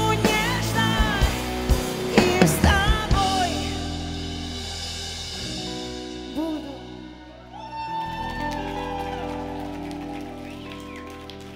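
Live pop-rock band with a female lead singer: a last sung phrase over drum hits in the first few seconds, then held chords ringing on and slowly fading with a few soft vocal notes, as the song comes to its end.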